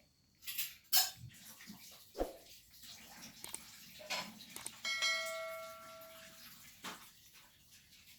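Cat eating, with scattered wet smacking and clicking sounds of chewing. About five seconds in, a short metallic ring sounds for a second or so and fades.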